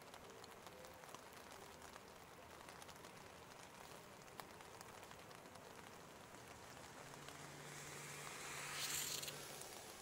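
Faint light rain: soft patter and hiss. A low steady hum comes in about seven seconds in, and a brief swell of hiss rises and falls near the end.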